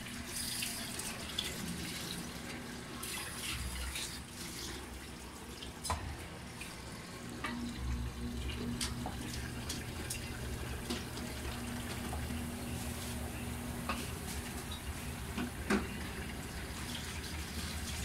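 Whirlpool Intellicarga top-load washing machine in its spin cycle: a steady hum as the drum spins while water is flung out of the laundry and drained, with a few light clicks.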